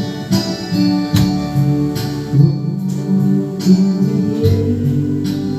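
Acoustic guitar strumming and picking an instrumental passage of a slow ballad, between sung lines.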